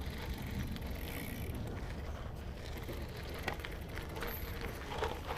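Steady low rumble of a gravel bike being ridden, from its 38 mm tyres on the road and wind on the action camera's microphone. A couple of sharp clicks or rattles come about three and a half and five seconds in.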